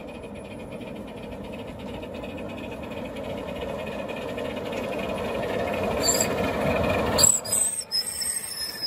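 Maxitrak Austerity 0-6-0 saddle-tank locomotive, 5-inch gauge live steam, running with a train of wagons, growing steadily louder as it approaches. About seven seconds in, as it passes close, come sharp clicks and high squeals from the wheels on the rails.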